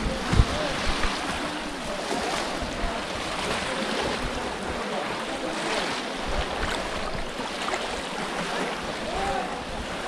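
Many people wading and plunging bamboo polo fish traps through shallow water: a steady wash of splashing, with a crowd's voices calling faintly over it and some wind on the microphone. A few dull thumps in the first second.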